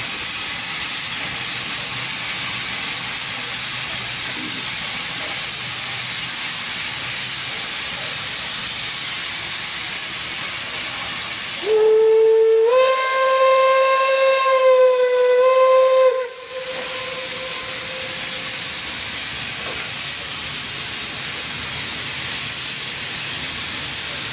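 Steady hiss of steam from the steam locomotive 01 1066, a DRB class 01.10 express engine. Partway through, its steam whistle sounds one long blast of about five seconds, a single pitched tone that steps up slightly just after it starts.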